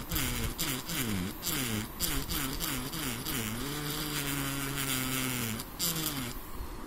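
Handheld Engrave-It engraver pen buzzing as its vibrating tip cuts letters into wood. Its pitch dips and recovers again and again, holds steady for a couple of seconds, then the buzz stops shortly before the end.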